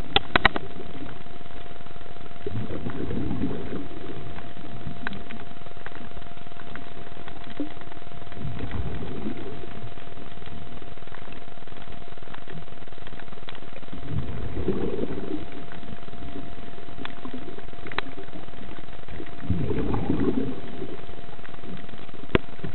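Underwater recording: a diver's exhaled breath bubbling from the regulator in low rumbling surges about every five to six seconds, over a steady hiss with a thin constant tone and a few sharp clicks.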